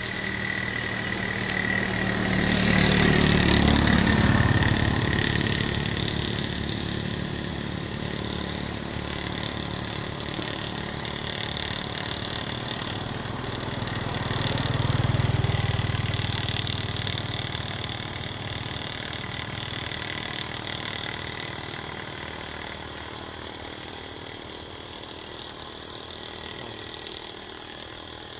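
Motor vehicle engines on the road passing by: a low engine rumble swells twice, about three to five seconds in and again around fifteen seconds, then fades away.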